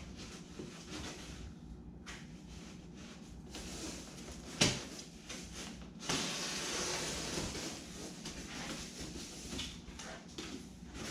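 A paper pattern being handled and trimmed with a razor knife inside a foam kayak hull: paper rustling and scraping. There is a sharp knock about four and a half seconds in, and louder rustling from about six seconds.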